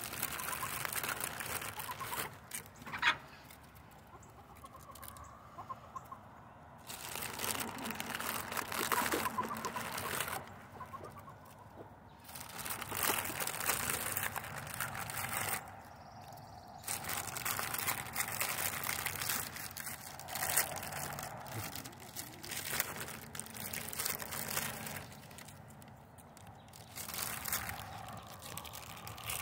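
Backyard chickens clucking while they peck at crackers on the ground, with one short, louder call about three seconds in. Stretches of rustling hiss come and go throughout.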